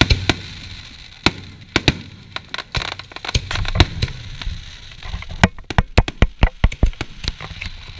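Aerial fireworks going off: a series of sharp bangs and pops. They come closer together about five seconds in, becoming a rapid crackling run of reports.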